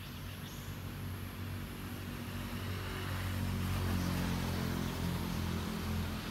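A distant engine's low hum, steady in pitch, swelling to its loudest about four seconds in, over a faint steady hiss.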